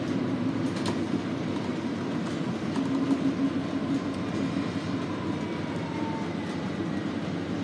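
Cabin noise of a 2019 Nova Bus LFS diesel-electric hybrid city bus moving slowly: a steady drivetrain and road rumble. A faint whine drops slightly in pitch in the second half, as the bus slows.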